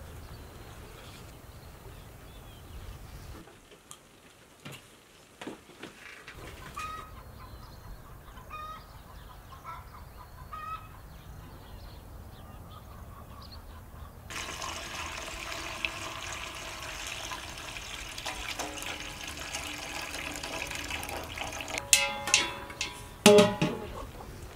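Chickens clucking, then a steady splashing as liquid is poured from a pan into a metal cooking pot, with a few loud, sharp sounds near the end.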